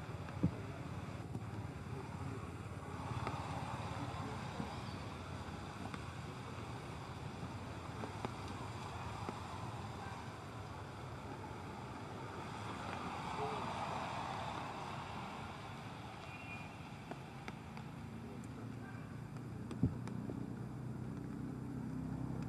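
Steady outdoor background noise with slow faint swells, broken by a sharp click about half a second in and another near the end.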